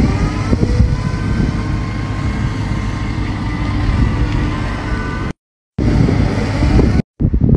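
Wheel loader's diesel engine running, a steady low rumble with a faint whine above it. The sound drops out for a moment about five seconds in, and again near the end.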